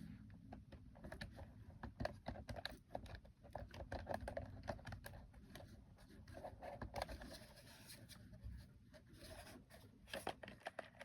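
Faint handling noise of plastic toys: many small, irregular clicks and rustles as they are picked up and their buttons pressed.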